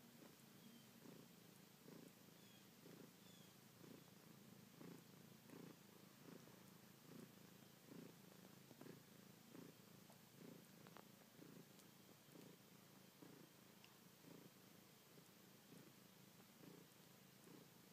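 Domestic cat purring faintly and steadily while kneading and sucking a blanket, the purr swelling and easing in an even rhythm, about three swells every two seconds, with each breath in and out.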